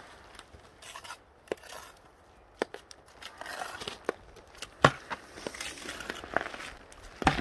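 Scattered sharp knocks, four or so, the loudest near the end, with scraping and crunching between them.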